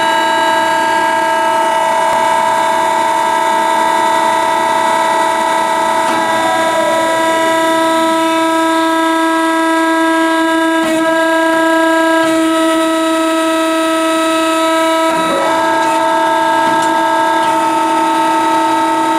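Marvel V10A2 vertical band saw cutting a block of steel: a loud, steady, multi-toned metallic whine from the blade in the cut. A short falling tone comes about six seconds in, and there are brief clicks around eleven and fifteen seconds.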